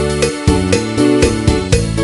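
Background music: an upbeat keyboard or electric-piano tune with a steady beat.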